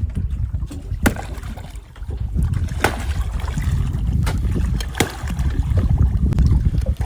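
Steady low rumble of wind and boat noise, broken by four sharp knocks on the boat.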